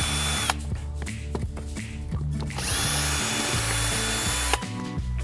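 Power drill with a Phillips bit backing out two screws from a sofa's wooden seat frame. It makes a short run that stops about half a second in, then a second run of about two seconds, its motor whining at a steady pitch.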